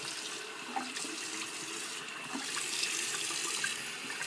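Bathroom sink tap running steadily, with small splashes of water as someone rinses their face with cupped hands.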